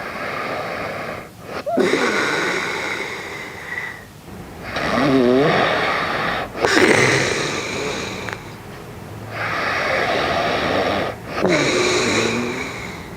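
A man asleep and snoring: loud, wheezy breaths in and out in a slow, regular rhythm, some breaths with a short rattling snore. This is snoring that goes on through an anti-snoring tongue sleeve, a sign of a partly blocked airway.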